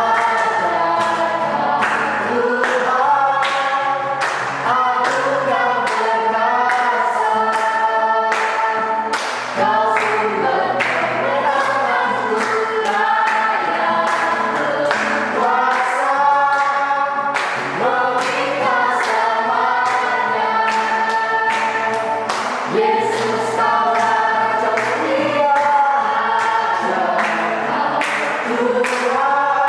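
A group singing a worship song together, with instrumental accompaniment and a steady beat of about two strokes a second.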